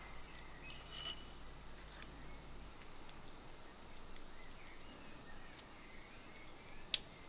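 Faint birdsong from outdoors: scattered short chirps. Small handling clicks are heard over it, with one sharp click near the end.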